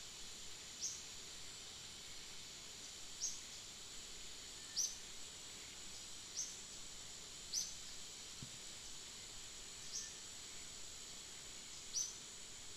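Steady high insect buzz of a forest, with a bird's short high chirp repeated seven times, every second or two.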